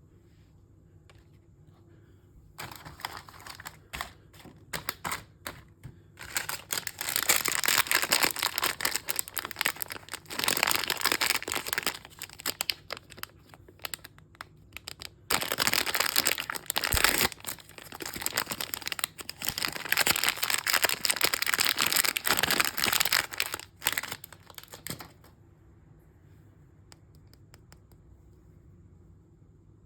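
Crinkling and tearing of a toy mystery bag's packaging being opened by hand, in bursts of rustling with short pauses. It starts a couple of seconds in and stops a few seconds before the end.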